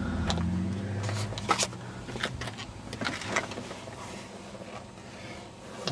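Scattered light clicks, taps and knocks with rustling as someone climbs into a car's driver seat through the open door, over a faint low hum that fades in the first second or two.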